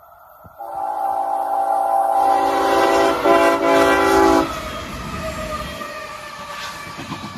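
Horn of a CSX GE ES44AH diesel locomotive sounding for a grade crossing: one loud, steady multi-note chord from about half a second in, broken briefly near three seconds and cut off about four and a half seconds in. After the horn, the lead locomotives' engines and wheels rumble past close by.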